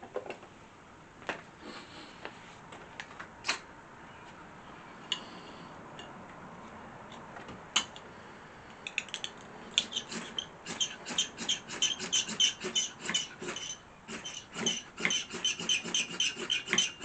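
Fatwood kindling catching fire: a few scattered clicks and taps, then from about nine seconds in a fast, dense crackling and popping as the resinous wood takes.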